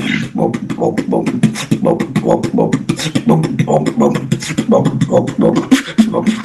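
Beatboxer performing a fast routine: a quick, unbroken run of sharp mouth-made clicks and snares over a low pitched bass.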